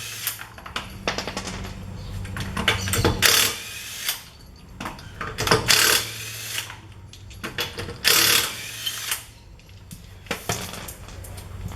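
Pneumatic impact wrench hammering in short bursts of about half a second on a car's wheel bolts, undoing them, with small metallic clinks between the bursts.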